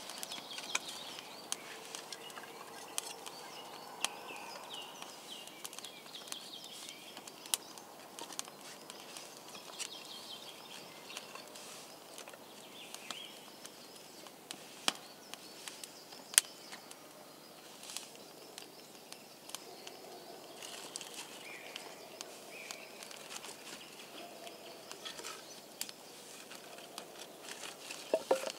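Small, newly lit campfire of split kindling crackling, with scattered sharp pops and light knocks as sticks are laid onto it. Birds sing faintly in the background.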